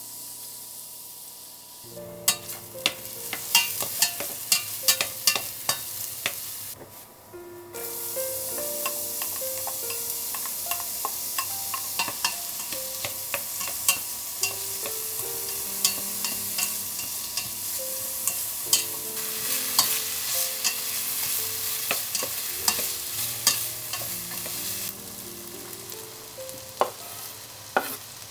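Vegetables frying in olive oil in a pan while being stirred, with a steady sizzle and frequent clicks of the utensil against the pan. The sizzle breaks off briefly about seven seconds in.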